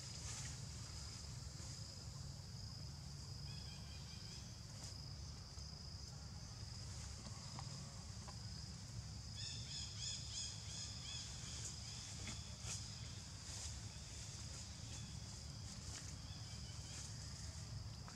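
Forest ambience: insects keep up a steady high-pitched drone, with groups of short chirping calls about four seconds in, again around ten seconds in, and near the end, over a low rumble.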